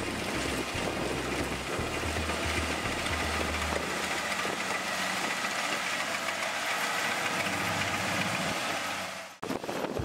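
Kubota rice combine harvester running steadily as it cuts rice: engine and threshing machinery noise with a faint steady whine. The sound breaks off abruptly near the end and a rougher machine sound takes over.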